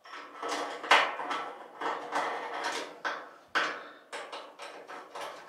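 A metal tool hook and its screw clicking and scraping against the steel leg of an electric grill as they are fastened by hand: an irregular run of short clicks and rattles, with sharp knocks about a second in and about three and a half seconds in.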